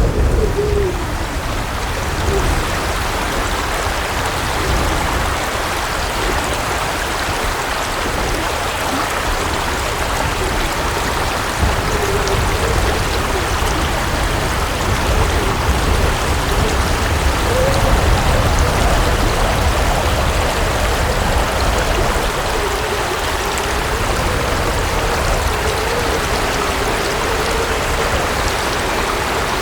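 Steady rushing of flowing water, a continuous hiss with a low rumble underneath.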